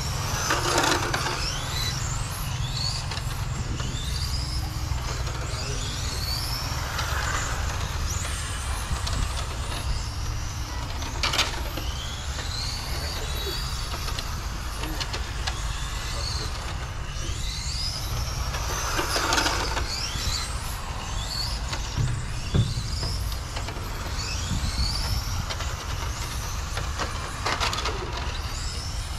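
Radio-controlled car driving around the track, its motor whine rising and falling in pitch again and again with the throttle, over a steady low rumble. The whine swells louder a few times as the car comes nearer.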